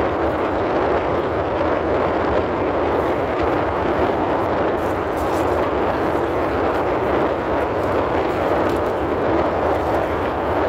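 Steady, even rushing noise inside a car cabin.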